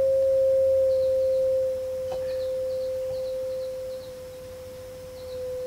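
Clean sine-wave test tone from a signal generator, reproduced through a vintage stereo amplifier's speaker: one steady, pure, unwavering tone. It gets quieter in two steps, about two and four seconds in, and comes back up near the end. The tone is clean, a sign the amplifier passes the signal without distortion.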